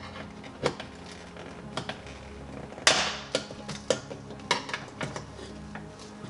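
Plastic wiring clips clicking and knocking as they are pried loose from a car's inner door panel: irregular sharp clicks, with one louder clack about three seconds in.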